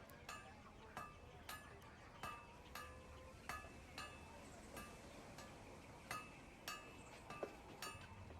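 Light metallic strikes, irregular and about one or two a second, each with a short ring, over a faint low background hum.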